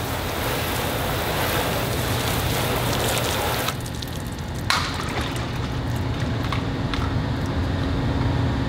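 Garden hose spray nozzle spraying water onto a coated car hood panel: a steady hiss that stops about three and a half seconds in, followed by a single click and a few faint ticks.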